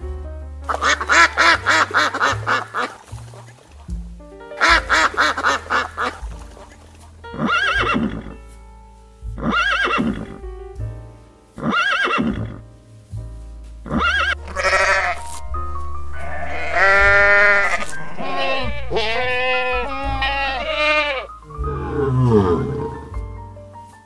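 Background music with a series of animal calls over it. Short repeated calls come first, then longer wavering calls in the second half.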